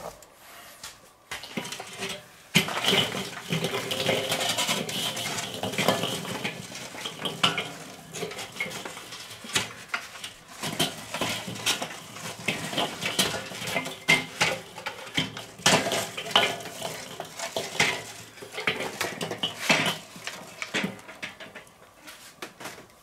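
Glowing charcoal briquettes poured from a chimney starter into a Weber kettle grill, clattering and clinking against the metal bowl and grate in a long run of irregular rattles and knocks that starts a couple of seconds in.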